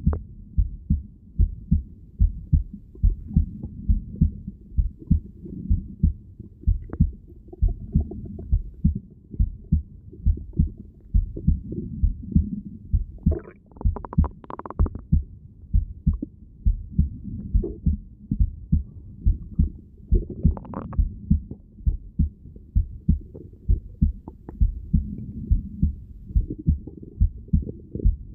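Heartbeat heard through a stethoscope held to the chest: steady, regular low thumps. A couple of brief gurgles cut in about halfway through and again about three-quarters of the way through.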